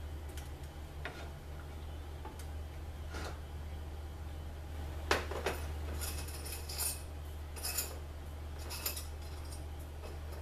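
Metal parts of a TH400 transmission clinking and knocking against each other and the steel workbench as they are handled: scattered sharp clinks, coming more often in the second half, over a steady low hum.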